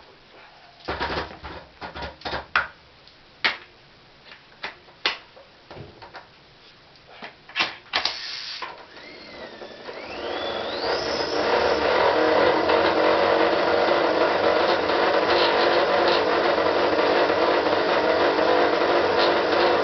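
A series of scattered clicks and knocks, then a motor starts about nine seconds in with a rising whine and runs on steadily and loudly.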